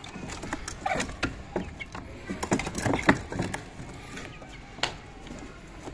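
Scattered clicks and knocks of a wooden coop door and its latch being worked open and a food bowl being set down inside.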